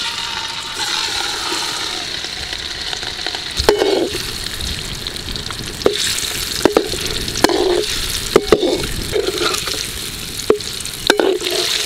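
Boiled quail eggs sizzling as they fry in hot oil in a metal kadai. From about four seconds in, a metal slotted spoon clinks and scrapes against the pan several times as they are stirred.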